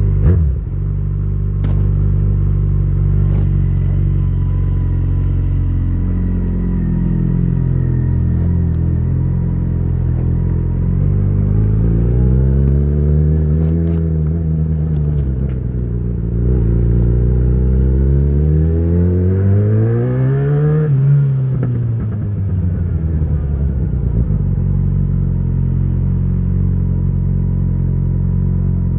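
2013 Yamaha XJ6's 600 cc inline-four running through an Ixill full exhaust with the dB killer fitted. It runs steadily at low revs, then rises in revs and falls back twice before settling to a steady low note again.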